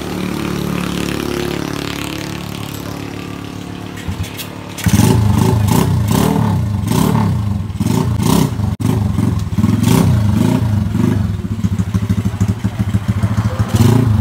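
Honda EX5 motorcycle's single-cylinder engine, built up with a 58 mm block and a TS125 carburettor, running steadily, then about five seconds in revved hard in quick repeated throttle blips as the engine is tested.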